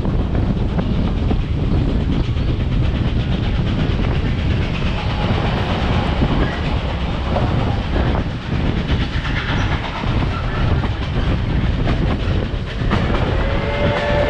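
Steam excursion train's riveted steel passenger coach rolling along at speed, a steady rumble and clatter of wheels on the rails. About a second before the end, a chord of several steady tones begins: Reading 4-8-4 No. 2102's chime whistle starting to blow.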